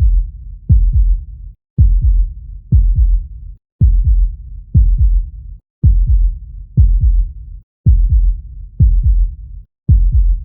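Human heartbeat, steady at about one beat a second, each beat a low, deep double thump (lub-dub).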